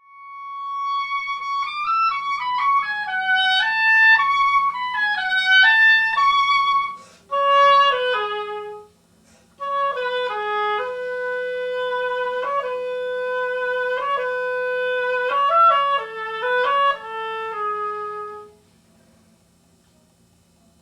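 Oboe playing a solo melody in three phrases, the last with long held notes, and stopping a couple of seconds before the end.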